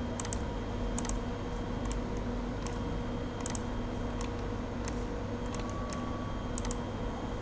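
About a dozen sparse, irregular light clicks from a computer mouse and keyboard being worked, over a steady low electrical hum.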